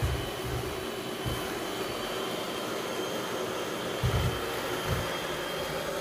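iRobot Roomba i7+ robot vacuum running over a tile floor as it picks up Orbeez water beads: a steady motor whir with a thin high whine. A few low thumps come through, one about a second in and two more between four and five seconds in.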